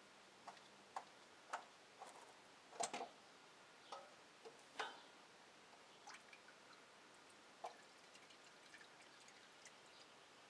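Faint, irregular drips of old engine oil falling from the loosened oil filter into a drain pan, about a dozen, the loudest a few seconds in.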